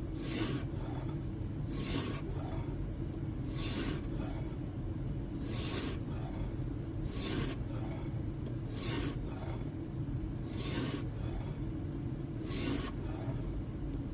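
600-grit stone of a guided knife-sharpening system pushed along the edge of an N690 steel blade, one short rasping stroke about every two seconds. The coarse stone is reprofiling the edge, working out the scratches left by a 120-grit stone.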